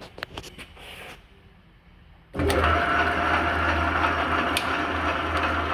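A few faint clicks, then a couple of seconds in the Heald horizontal mill's 1 horsepower three-phase motor switches on and runs steadily with a low hum and a steady whine from its drive.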